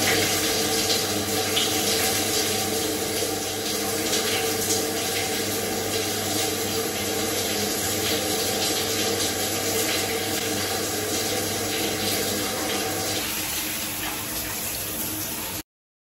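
Ceiling-mounted rainfall showerhead running, a steady rush of water pouring onto a person's head and hands and the shower floor; it cuts off suddenly near the end.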